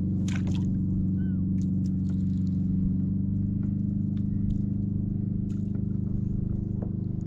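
Boat's outboard motor running steadily at trolling speed, a constant low hum, with a few faint light clicks over it.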